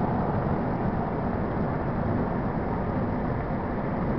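Steady wind noise and road rumble in a car driving at highway speed.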